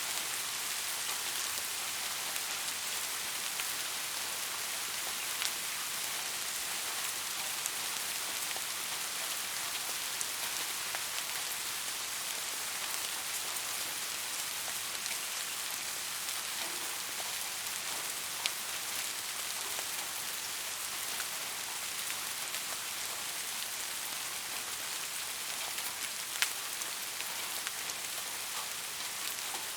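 Steady rain falling: an even hiss with scattered single drops ticking, and two sharper drop clicks, one a little past halfway and one near the end.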